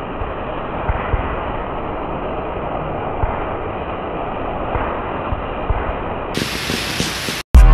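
Handheld sparkler fireworks burning: a steady hiss of spraying sparks with scattered crackles, turning brighter near the end before it cuts off abruptly and loud electronic music kicks in.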